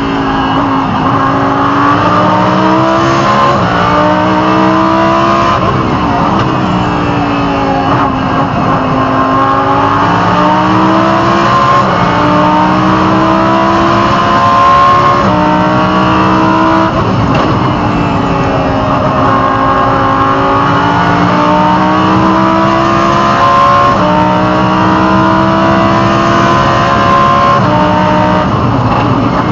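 Lamborghini Huracán Super Trofeo's V10 engine heard from inside the cockpit at racing speed, climbing in pitch through the gears with a quick drop at each upshift. Twice the pitch sweeps down as it slows before pulling up through the gears again.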